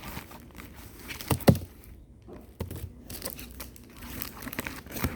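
Packaging being handled and fiddled with by hand, crinkling and rustling with scattered small clicks and a sharp knock about one and a half seconds in.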